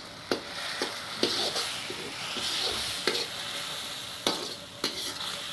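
A metal spoon stirs and scrapes a tomato-and-spice masala sizzling in a karahi, with a few sharp clicks of the spoon against the pan.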